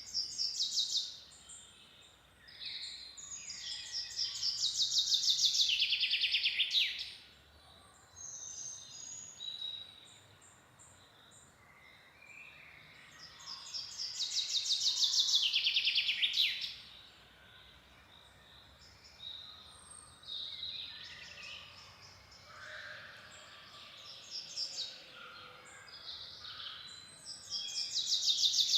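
Forest songbirds singing. One bird repeats a loud song about every ten seconds: a fast run of notes that falls in pitch and grows louder over about three seconds. Softer chirps and calls from other birds fill the gaps.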